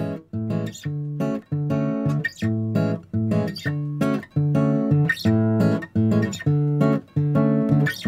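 Background music: acoustic guitar playing a bossa nova, plucked chords in a steady rhythm.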